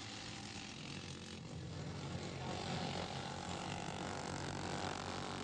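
Racing lawnmower engines running hard, a dense droning engine note that grows louder over the first couple of seconds and then holds steady.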